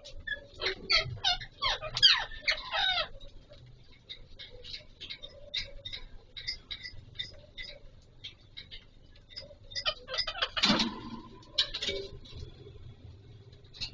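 Alexandrine parakeets calling: a quick run of harsh squawks in the first three seconds, then softer chattering and clicks. Another loud squawk comes about ten and a half seconds in, and a shorter one near twelve seconds.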